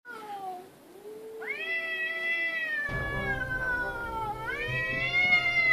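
Two domestic cats yowling at each other in a standoff: long, drawn-out, overlapping cries that slowly rise and fall in pitch. A lower, rougher sound joins about three seconds in.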